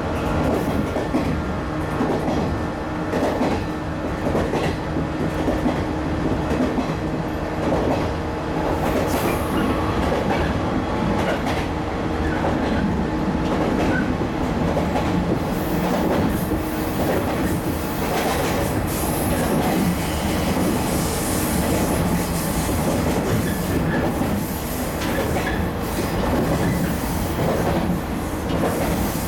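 Cabin noise inside a 115 series electric train car running along the line: a steady rumble with the wheels clicking over rail joints. The rushing hiss grows brighter about halfway through.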